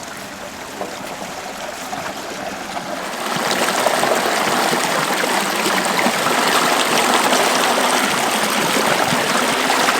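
Running water rushing steadily, growing louder about three seconds in and then holding even.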